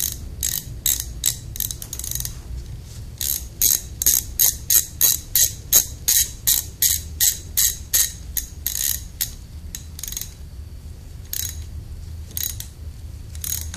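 Socket ratchet clicking as it turns a small timing chain cover bolt into a cast-iron engine block, with a fast, even run of short click bursts, about three a second, through the middle, and slower, scattered strokes near the end.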